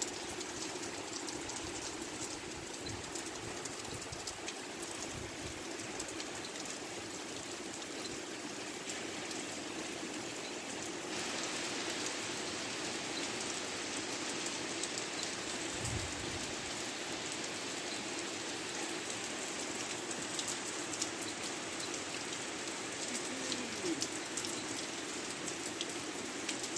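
Steady rain falling, an even hiss with a fine patter of drops; it gets a little heavier about eleven seconds in.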